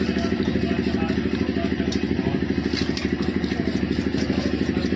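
Motorcycle engine idling steadily, an even, rapid putter at a constant speed.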